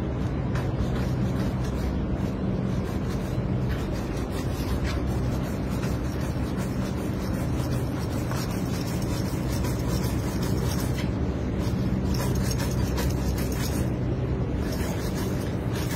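Irregular scraping and rubbing against a metal pipe, over a steady low hum.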